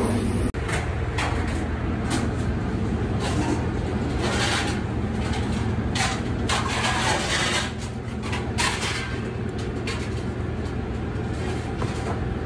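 Commercial kitchen ambience: a steady low hum, with irregular short bursts of clatter and noise over it.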